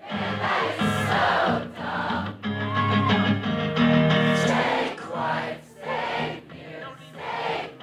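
Live acoustic rock song: a male singer with a strummed acoustic guitar, many audience voices singing along with him, heard from within the crowd.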